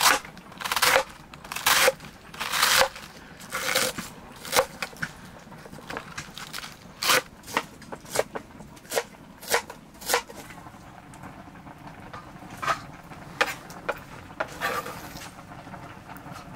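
Kitchen knife shredding a head of cabbage on a plastic cutting board: crisp chopping strokes about once a second, with a pause of a couple of seconds past the middle.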